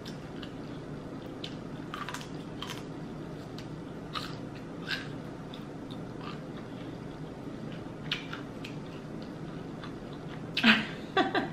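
Close-miked eating: scattered soft chewing clicks and mouth sounds over a steady low room hum, with a louder cluster of clicks near the end.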